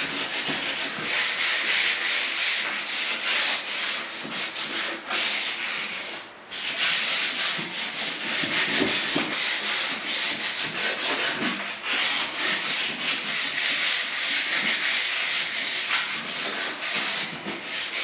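Sandpaper rubbed by hand in quick back-and-forth strokes over the stained, polyurethaned finish of a fiberglass door, scuffing the old finish ahead of a bonding primer. There is a short pause about six seconds in.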